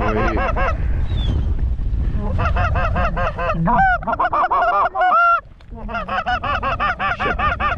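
Canada goose calling: rapid runs of short honks and clucks, about seven a second, broken by two longer, higher rising honks in the middle, over a low wind rumble.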